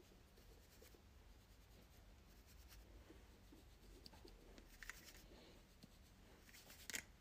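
Faint soft brushing of a makeup brush sweeping blush across the cheek, with a couple of brief faint clicks.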